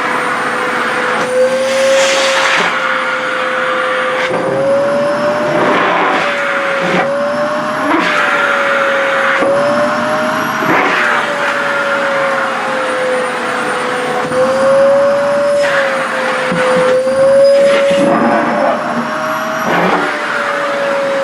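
Sharp EC-KP7F-A vacuum cleaner running with a steady motor whine that wavers slightly up and down in pitch as the suction loads, while the cloth of a tiered dress is drawn against the nozzle, rustling and flapping every few seconds.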